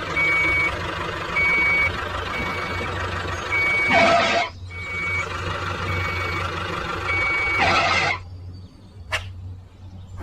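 A heavy construction vehicle's reversing alarm beeps steadily, about once every 0.7 seconds, over its running diesel engine. Two short, loud hisses come about four seconds apart. After the second hiss the beeping stops and the engine drops away.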